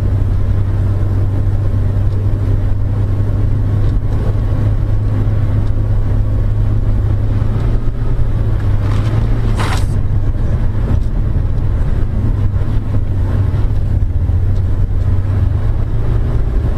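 Steady low drone of engine and road noise inside a moving car, picked up by a dashcam. About ten seconds in, a short, sharper hissing sound rises above it.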